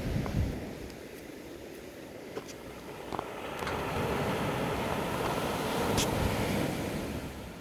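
Waves washing in: a rushing swell that builds over a few seconds and then falls away.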